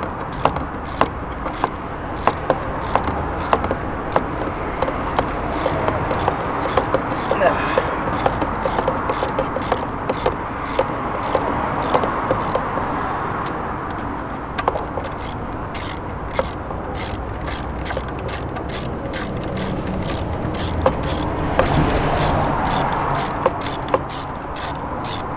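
Hand ratchet clicking steadily, a few clicks a second, as bolts on a blow-off valve adaptor are wound in.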